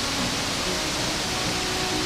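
Steady rushing of river or waterfall water, an even hiss with no breaks.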